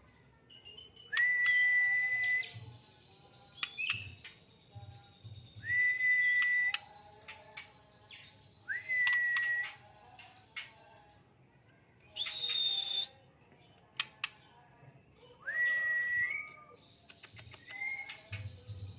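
Young white-rumped shama (murai batu) singing: clear held whistles about a second long, each rising sharply at the start, repeated six times, with short sharp clicks between the phrases.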